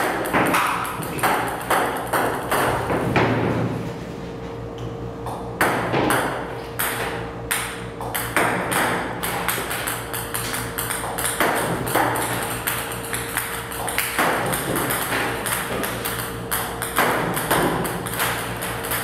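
Table tennis balls fed by a ball robot striking the table and net in a steady run of sharp clicks, roughly two a second.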